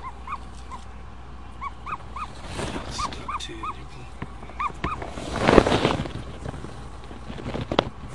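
Newly hatching ostrich chick peeping in short rising-and-falling chirps, about a dozen in the first five seconds. They are interrupted by a louder burst of rustling about five and a half seconds in, as shell and membrane are handled, and a few sharp clicks near the end.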